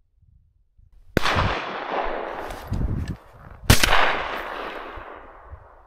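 Two shotgun shots about two and a half seconds apart, the second louder. Each is followed by a long echo that rolls away and fades.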